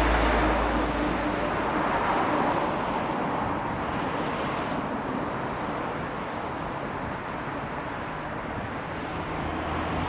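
Road traffic noise from passing cars, mostly tyre hiss on the road surface, slowly fading away and picking up again near the end.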